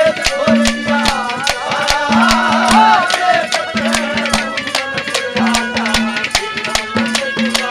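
Haryanvi ragini folk music with no singing: a hand drum beats a quick, steady rhythm of about four strokes a second under a melody line that bends and slides in pitch.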